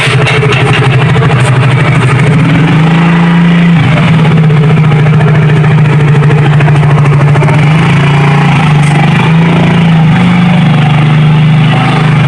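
Motorcycle engine running loudly, its pitch shifting up and down a few times.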